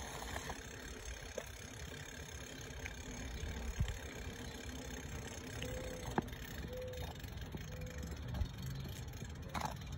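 A small balance bike rolling along a concrete sidewalk: a low, steady rumble with a few light knocks.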